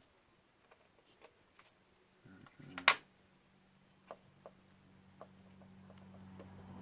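Scattered light clicks and taps of small parts and a screwdriver being handled on a drone's gimbal camera, with one sharp click about three seconds in. After it a low steady hum comes in and slowly grows louder.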